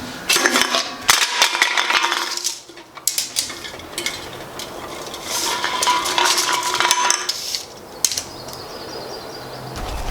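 Metal objects clinking and clattering with some scraping, in busy bursts.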